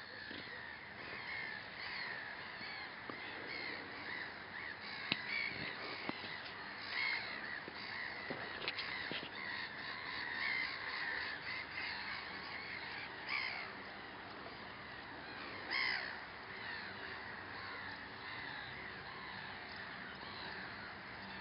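Many birds calling at once, a continuous jumble of short overlapping calls with a few louder ones standing out now and then.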